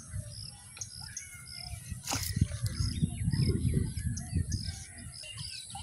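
Birds chirping, short high notes repeating about twice a second over a steady high-pitched hiss. A louder low rumble runs from about two seconds in to four and a half.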